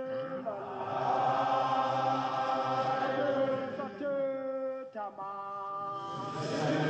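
Music of voices chanting long held notes, choir-like, the sung pitch changing a few times.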